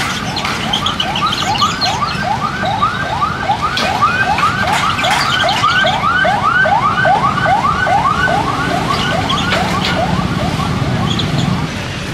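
An electronic siren yelping: a rising wail that repeats about three times a second and stops about ten seconds in, over a low rumble of traffic.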